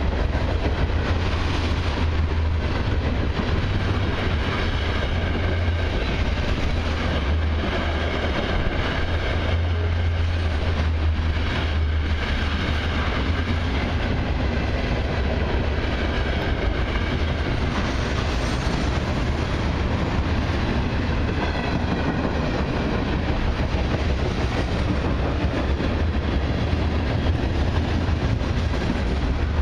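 Freight cars of a long mixed freight train rolling past at close range: a steady rumble of steel wheels on rail with rattling from the cars, open-top hoppers and then tank cars.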